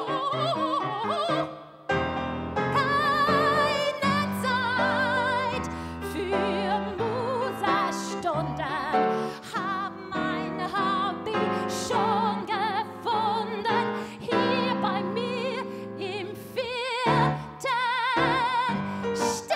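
Woman singing in an operatic style with wide vibrato and quick runs, with no clear words, over piano and small-band accompaniment. There is a brief break about two seconds in.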